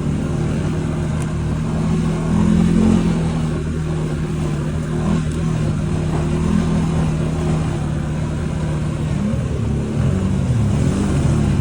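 ATV (quad bike) engine running while riding, holding a steady pitch, then revving up and down over its last few seconds.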